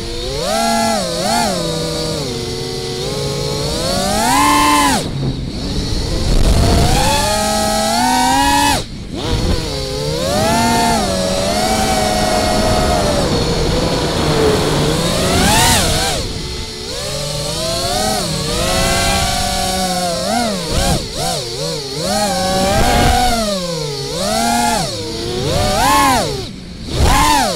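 An FPV quadcopter's four 2207 Butterflight brushless motors whining as it flies. The pitch climbs and falls constantly with the throttle, cutting out briefly about five and nine seconds in and again near the end.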